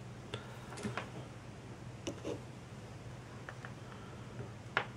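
Faint small clicks and taps of a soldering iron and tweezers against wires and solder pads on a quadcopter flight controller, about six scattered through, the sharpest near the end, over a low steady hum.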